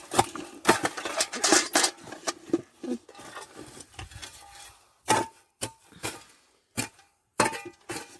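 Potatoes being harvested by hand: rustling and crackling soil for about three seconds, then a string of separate sharp knocks as potatoes drop into a nearly full bucket.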